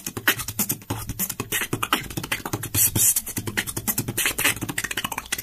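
Solo beatboxing: a fast run of mouth-made kick drums, snare clicks and hissing hi-hat sounds.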